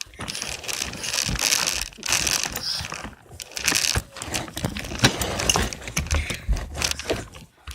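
Toy car carrying the camera moving over the floor: irregular plastic rattling, clicking and scraping in uneven bursts.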